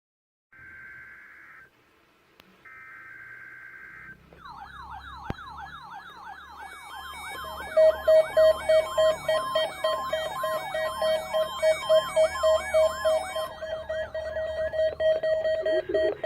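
NOAA Weather Radio SAME alert header: two short buzzy digital data bursts, followed by several weather alert radios sounding their alarms at once for the weekly test. Overlapping rising-and-falling siren wails start about four seconds in, and a loud pulsing beep with other beeping tones joins about halfway through.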